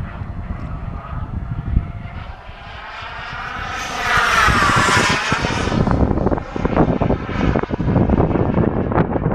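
Radio-controlled jet model aircraft flying past, its engine whine swelling loudest about four to five seconds in as it comes close and bending in pitch as it goes by.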